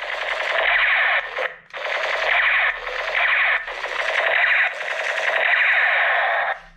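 Repeated bursts of tinny rapid-fire machine-gun sound, each about a second long, with a brief gap about a second and a half in.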